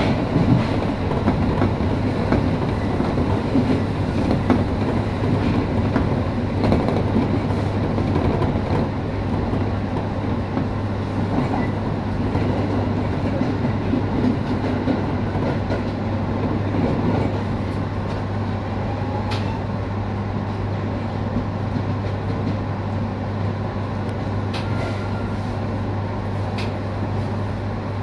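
Electric train running on the rails, heard from inside the front car: a steady low hum under rumbling wheel-on-rail noise, with a few sharp clicks, getting slowly quieter.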